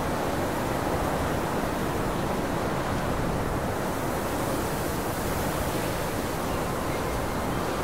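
Steady rushing noise, heaviest in the low and middle range, with no distinct sounds standing out from it.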